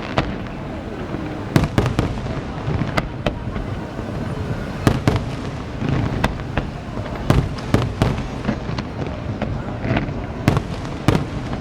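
Aerial fireworks display: a dozen or more sharp bangs of bursting shells at irregular intervals, over a continuous rumble of overlapping bursts.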